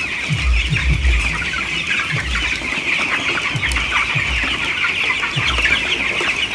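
A large flock of 19-day-old broiler chickens chirping and peeping, many short overlapping calls forming a constant chatter. Low thuds recur underneath about every half second to second.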